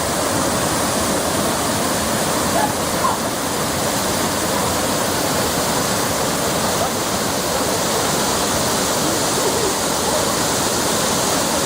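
Waterfall: a steady, even rush of falling water that does not change over the whole stretch.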